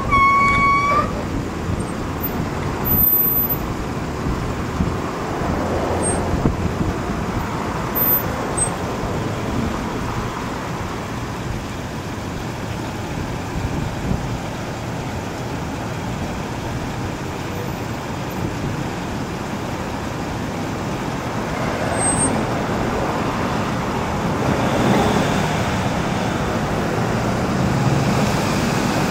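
Steady city street traffic noise, with a few vehicles swelling and fading as they pass. A steady high pitched tone stops about a second in.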